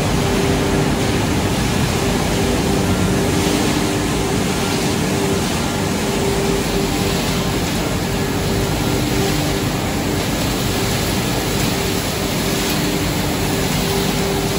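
Machinery of a pellet production line running steadily, with its drum dryer and air-handling fans: an even rushing noise with a steady hum underneath.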